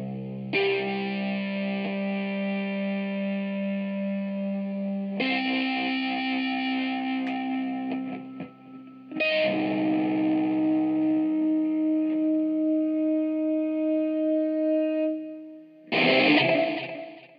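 Distorted electric guitar playing the closing chords of a rock song: three long chords struck about half a second, five and nine seconds in, each left to ring, then one short final strum near the end that dies away.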